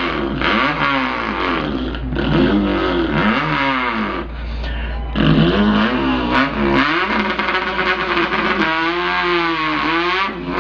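A man imitating an import car's engine with his mouth: a buzzing vocal engine note that revs up and falls back again and again, like shifting up through the gears, with a wavering, lower note near the end.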